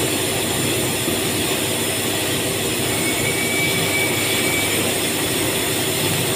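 Steady, loud din of running factory machinery around a large mold press, unbroken and without knocks, with a faint high whistle about three seconds in that lasts under two seconds.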